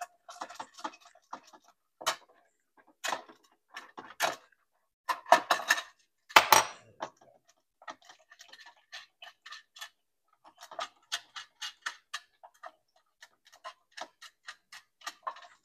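Small metallic clicks and taps as the nuts holding a fluorescent light ballast are worked off their studs by hand in the fixture's sheet-metal channel. There are a few sharper knocks in the first half, then a quicker run of light ticks, about four a second.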